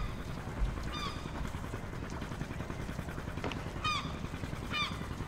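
Gulls calling: short, arched squawks repeated a few times over a steady low background of harbour ambience, with a brief low thump at the very start.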